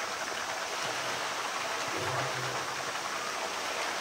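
Steady rush of running water in a polar bear's pool, while the bear swims through it.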